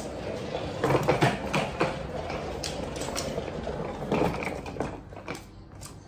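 Small hard-shell trolley suitcase rolled across the floor by its extended handle, its wheels rattling with scattered clicks and knocks; the rattle dies down near the end.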